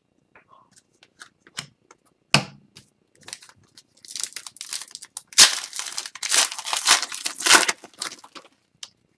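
An Upper Deck Series 1 hockey card pack's wrapper being torn open and crumpled by hand: a few light taps, then a dense stretch of crinkling and tearing for about four seconds midway.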